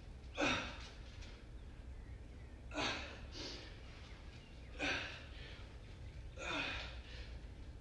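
A man exhaling hard with effort, four sharp breaths about two seconds apart, each one a repetition of a hanging core exercise on a pull-up bar.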